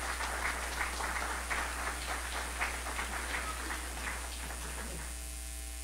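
Audience applauding, dying away about five seconds in and leaving a steady electrical hum.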